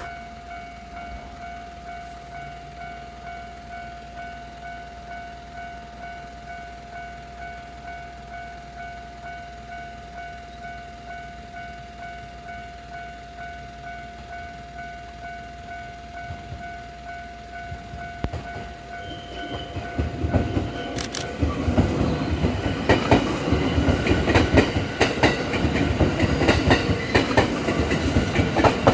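Level-crossing warning bell ringing in a steady, even beat, then a JR West 223 series 0 electric train coming up and passing over the crossing, loud from about 21 seconds in, its wheels clattering over the rail joints and drowning out the bell.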